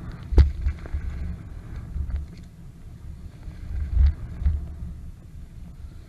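Wind rumbling on the microphone during a scooter ride, in uneven gusts, with two sharp knocks: one about half a second in and another around four seconds.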